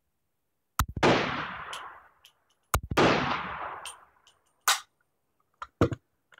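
Two pretty loud shots from a semi-automatic M1 carbine in .30 Carbine, about two seconds apart, each with a long ringing echo under the range's roof. A few short clicks follow near the end.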